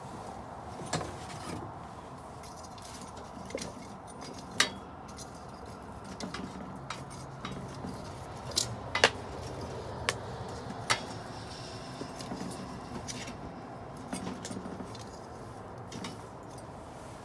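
Wood fire burning with a steady low rush and scattered sharp crackles and pops at irregular intervals, several close together near the middle.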